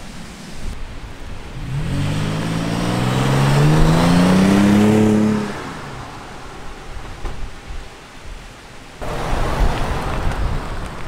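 Toyota 4Runner's 4.0-litre V6 through a Borla S-Type stainless cat-back exhaust, accelerating past: the exhaust note rises in pitch for a few seconds, loudest about four seconds in, then drops off suddenly. A second, rougher rumble swells up near the end.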